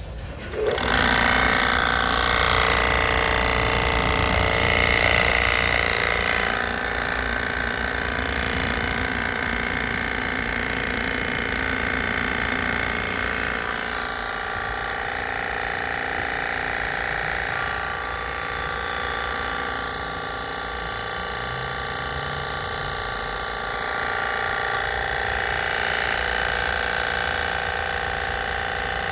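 Koshin MS-250C electric sprayer's pump motor switched on and running steadily with a whine and hiss. It starts abruptly about half a second in, and the level shifts slightly a few times along the way.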